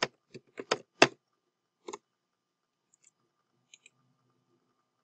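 Computer keyboard keystrokes as a file name is typed: about six sharp clicks in the first two seconds, the loudest about a second in. A few much fainter clicks follow between three and four seconds in.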